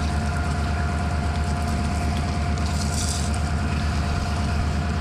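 Stopped train's locomotive engine idling: a steady low, throbbing rumble with a thin steady whine over it. A short hiss about three seconds in, from the fire extinguisher being sprayed.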